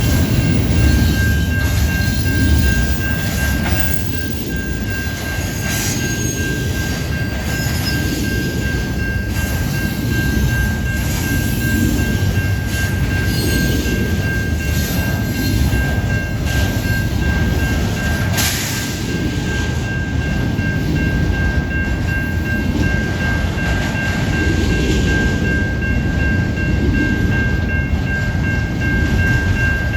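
Freight train cars rolling past at close range: a steady heavy rumble with scattered wheel clicks and a thin, high, steady squeal.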